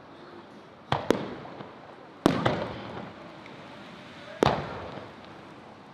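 Aerial firework shells bursting: about five sharp bangs, two of them in quick pairs, each trailing off in a rolling echo.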